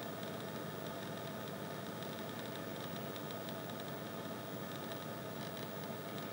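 Steady hiss and hum of recording noise with several faint constant tones; no distinct sound of the plucking stands out.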